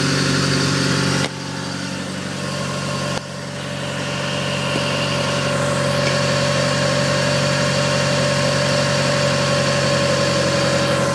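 Car engine idling steadily from cold, running loud with its exhaust fallen off, its accessory belts and pulleys spinning. The sound drops suddenly about a second in and again about three seconds in, then builds back up.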